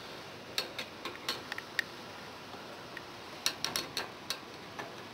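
Irregular sharp clicks and light taps from the frame and grille of a Polar Wind high-velocity floor fan being handled as it is taken apart. They come in two clusters, one about half a second in and another a little past three seconds.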